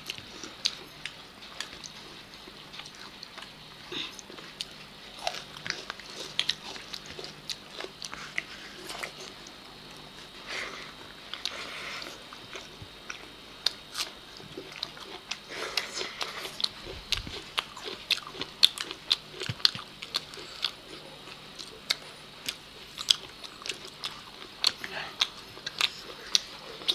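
Two people eating rice and chicken leg pieces by hand: chewing and biting with many short, irregular mouth and hand clicks, more frequent in the second half.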